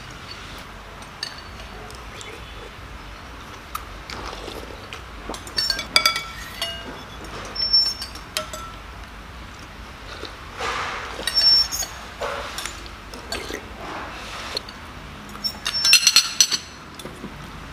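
Metal spoons and forks clinking and scraping against ceramic soup bowls while people eat: scattered light clinks, with a few louder ringing ones about six, eleven and sixteen seconds in.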